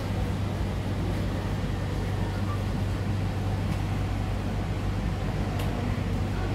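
MTR C-Train electric multiple unit running, heard from inside the carriage: a steady low hum with the rumble of wheels on the track.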